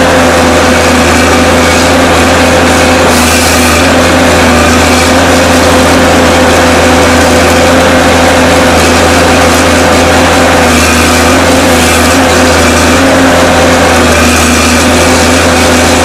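Forestry harvester's engine and hydraulics running steadily under load as the crane swings the harvester head, with a few short bursts of hiss along the way.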